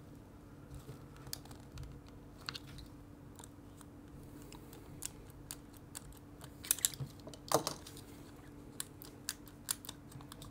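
Scattered small clicks and light taps of a camera's metal case and internal parts being handled and pried at with a screwdriver, busiest about seven seconds in.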